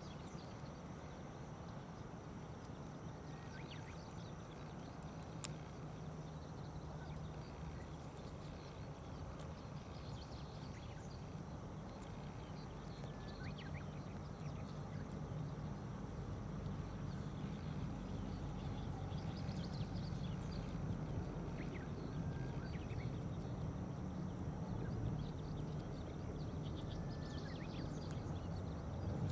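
Outdoor ambience: a steady low rumble that grows a little louder through the second half, with three or four short high chirps in the first few seconds.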